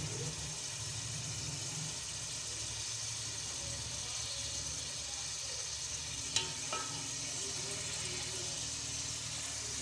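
Chicken pieces frying in oil in a metal pot over a low gas flame, a steady gentle sizzle. A little after six seconds in, a steel ladle knocks lightly against the pot twice as the chicken is stirred.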